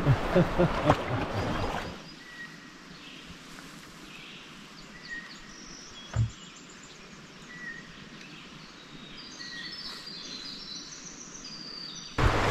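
Rushing water and splashing with knocks for about two seconds, then a sudden drop to quiet outdoor ambience with scattered faint bird chirps and one dull thump about six seconds in. The loud water noise returns just before the end.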